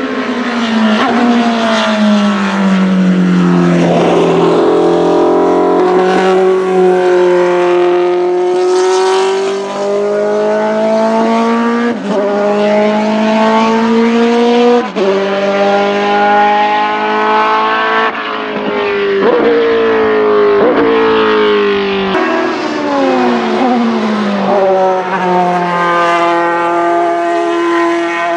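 Racing car engine accelerating hard through the gears: the pitch climbs and then drops sharply at each upshift, falls while the car slows and changes down, and climbs again near the end.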